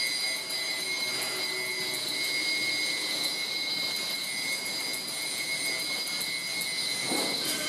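Electroacoustic sound-art drone from a magnet-and-coil installation: several steady, high-pitched tones held over a dense hissing, grinding noise. A short lower swell comes in about seven seconds in.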